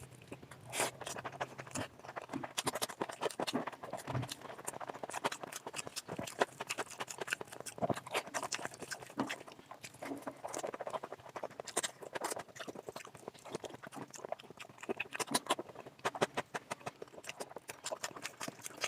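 Close-miked eating sounds: wet chewing and lip smacking over mouthfuls of oily mutton fat curry and rice, a steady stream of quick irregular clicks and smacks.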